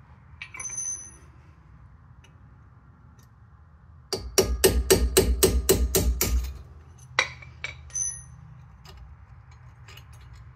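A hammer tapping a small punch in a quick run of about ten blows, roughly four a second, driving the lower pad retaining pin out of a Porsche Macan's front brake caliper. A few lighter metallic clinks of the tools come before and after.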